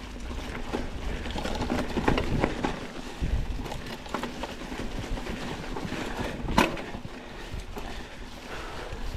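Mountain bike rolling slowly over a dirt trail covered in dry fallen leaves while being pedalled uphill: tyre noise with frequent small clicks and rattles from the bike. There is one sharp knock about two-thirds of the way through.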